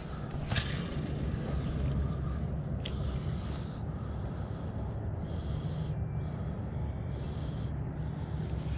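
Steady low rumble on a body-worn microphone, with sharp clicks about half a second and three seconds in, and short spells of faint whirring later on as a spinning rod is cast and its reel cranked.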